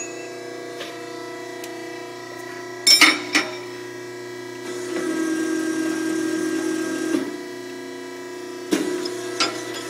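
Rod Chomper CBRE6 electric rotary rebar bender running with a steady hum. About three seconds in, a couple of metal clanks come as the steel bar is set against the pins. The motor then runs louder for about two and a half seconds while the turntable bends the bar, and more clanks follow near the end.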